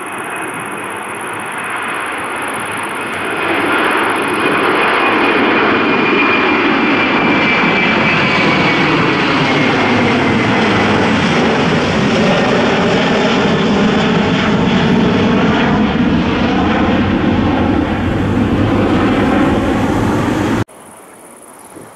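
An airliner's engines passing close by: a loud, steady noise with a high whine that slowly falls in pitch, growing louder about three and a half seconds in, then cutting off suddenly near the end.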